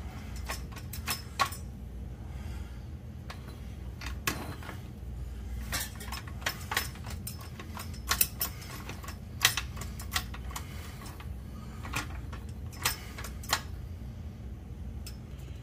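Metal hand tools and parts clinking and tapping as they are handled under a car, with irregular sharp clicks scattered throughout over a steady low hum.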